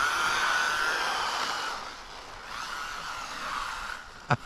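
Electric motor of an MJX Hyper Go 1/14-scale RC rally car on a 2S lipo, whining as the car drives, with a hiss from the gears and tyres. The sound fades about two seconds in and comes back, and a couple of sharp knocks come just before the end.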